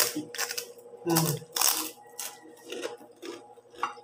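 Crisp fried pork rinds (chicharon) being bitten and chewed, a run of sharp crunches, loudest about a second in and fainter and more spaced out after that.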